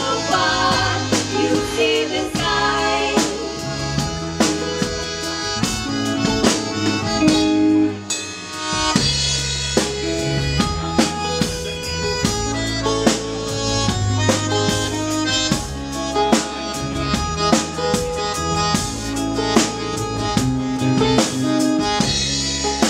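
Live band playing an instrumental passage: drum kit keeping a steady beat under bass guitar, electric guitar and keyboard.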